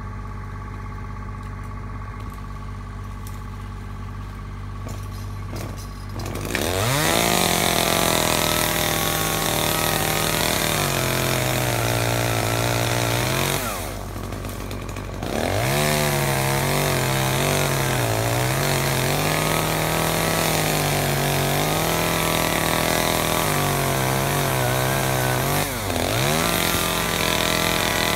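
Chainsaw idling low for about six seconds, then run at full throttle in two long stretches with a short drop back to idle between them; its pitch sags and recovers as it cuts through oak branches.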